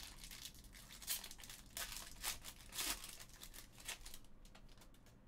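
Foil trading-card pack wrappers crinkling and tearing as packs are opened, in several short rustling bursts that die down about four seconds in.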